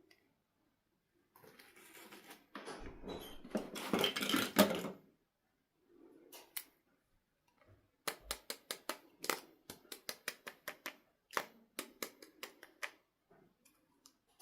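Hands handling a toy doll and its packaging: a few seconds of rustling and scraping, then a quick run of sharp clicks, about four a second.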